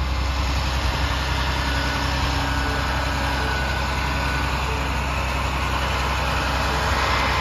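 Flatbed tow truck's engine idling steadily, a constant low hum.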